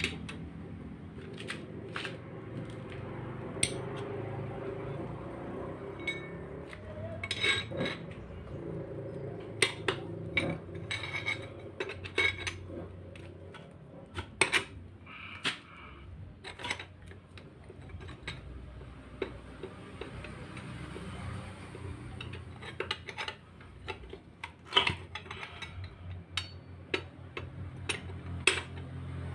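Socket wrench on a long extension working bolts inside an opened Suzuki Multicab manual transmission case: irregular sharp metallic clicks and clinks, some in quick runs, over a steady low hum.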